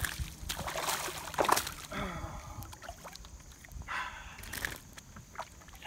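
Hooked bass thrashing at the water's surface: a run of splashes in the first two seconds, and another burst of splashing about four seconds in as it is lifted from the water.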